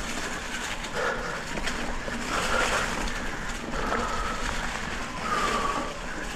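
Electric mountain bike riding along a dirt trail: steady tyre and wind noise, with a short swelling sound about every second and a half.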